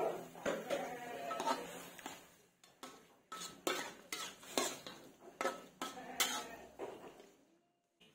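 Metal spatula scraping and clanking against a metal wok while stirring food, in irregular strokes about one or two a second, over a faint sizzle; it stops near the end.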